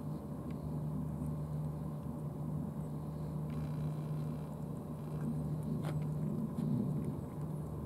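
A steady low mechanical hum, with faint clicks and smacks from two cats eating wet food out of plastic trays; one sharper click about six seconds in.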